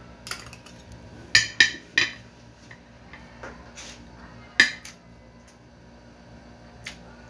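Metal spoon clinking against a plate of rice: several sharp clinks at irregular intervals, the loudest cluster between one and a half and two seconds in and a single loud clink about four and a half seconds in.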